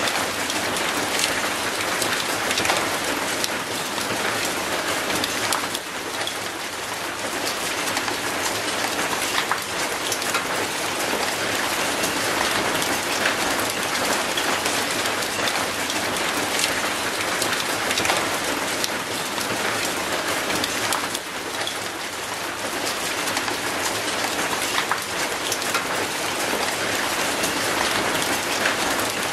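Steady rain falling on concrete paving and an old rusty metal gate: a dense, even hiss made of countless small drop impacts.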